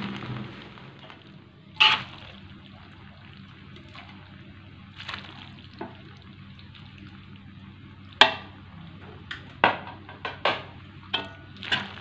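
Metal spatulas knocking and scraping against a wok as fried macaroni is tossed, over a soft steady hiss from the pan. There are sharp clanks about two seconds in and a quick run of them in the last four seconds.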